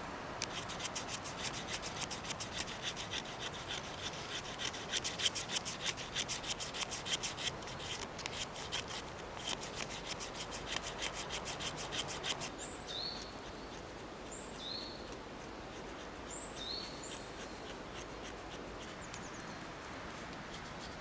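Swiss Army knife blade scraping the inside of old, damp birch bark in rapid repeated strokes, working up a fine tinder powder. The scraping stops about twelve seconds in; after that a bird gives a few short, high calls.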